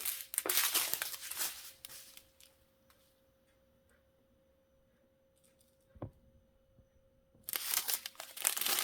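Plastic bags of diamond-painting drills handled and crinkling, for the first couple of seconds and again from near the end. In between it is quiet, with a faint steady hum and a single click.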